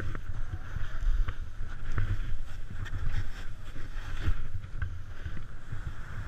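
Snowboard sliding and scraping through snow, its hiss swelling and fading with each turn, with a few short clicks of board chatter. Wind rumbles on the microphone underneath.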